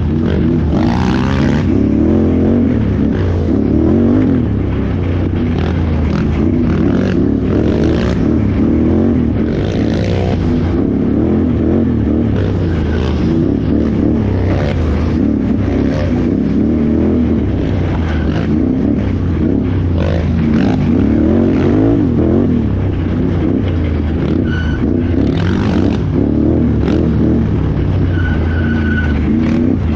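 Can-Am Renegade XXC 1000R ATV's V-twin engine revving up and down continuously as it is ridden hard off-road, with scattered short knocks and clatter over rough ground.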